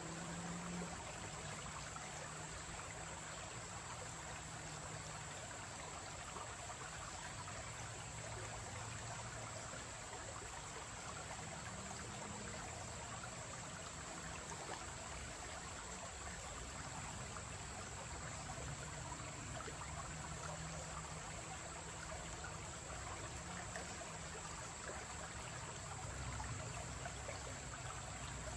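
Shallow creek trickling and babbling over rocks and stones, a steady, even water sound.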